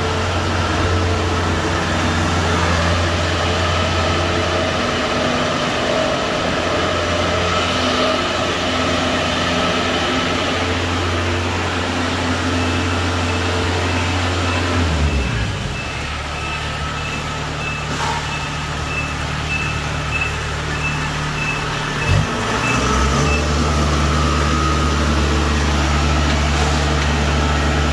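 Kubota DC-70 combine harvester's diesel engine running as the machine is driven; the engine note dips and settles at a new pitch about halfway through, and dips again briefly later. A short high warning beep repeats steadily, about every two-thirds of a second, for roughly ten seconds in the middle.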